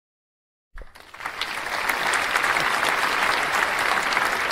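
Applause from a clapping crowd, starting abruptly out of total silence less than a second in, swelling over the next half-second and then holding steady.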